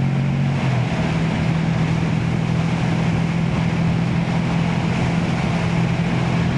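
Motorcycle engine running at a steady cruising speed, with wind rushing over the helmet-mounted microphone; the engine note changes slightly about a second in.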